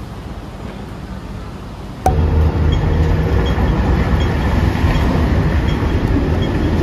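A quiet outdoor hiss up to about two seconds in, then a sudden jump to loud street traffic: a steady low rumble from road vehicles and a double-decker tram, with faint regular ticks over it.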